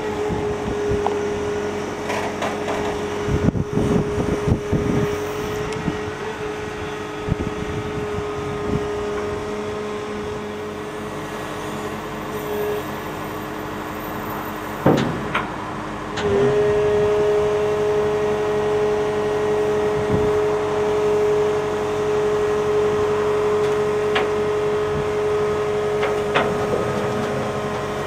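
Volvo EW140C wheeled excavator running with a steady whine, with a few clanks in the first seconds and a sharp knock about halfway. About sixteen seconds in the whine steps up louder, with a second, higher tone added.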